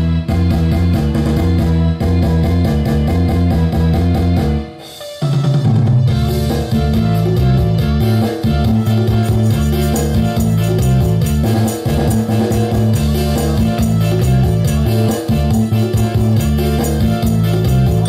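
Background music with a steady drum beat, a stepping bass line and guitar, with a short break about five seconds in.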